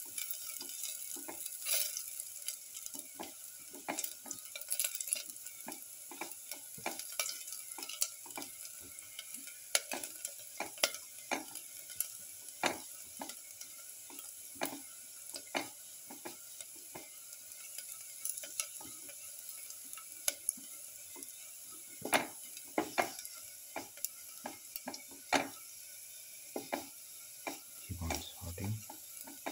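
Sliced shallots sizzling in hot oil in a metal pan, with a steady hiss, while a spatula stirs them and scrapes and taps against the pan in frequent irregular clicks. A dull low knock comes near the end.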